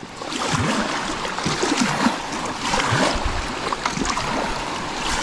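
Kayak paddle blades dipping and splashing as the paddler strokes, with the steady wash of water around the hull.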